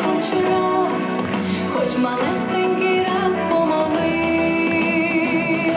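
Female vocalist singing into a handheld microphone over instrumental accompaniment. Near the end she holds one long note with vibrato.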